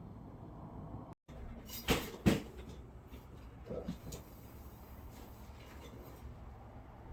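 Two sharp knocks about half a second apart, the loudest sounds here, followed a couple of seconds later by a few softer knocks over low background noise.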